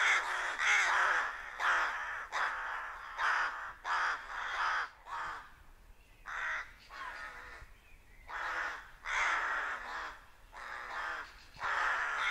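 A flock of rooks cawing, many harsh calls overlapping, with a lull about six seconds in before the calling picks up again.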